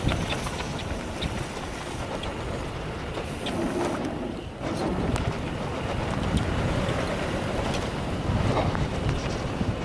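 Wind rushing over the camera microphone and tyres running over a dirt trail as a mountain bike descends at speed, with scattered sharp clicks and rattles throughout. The rush eases briefly about four seconds in.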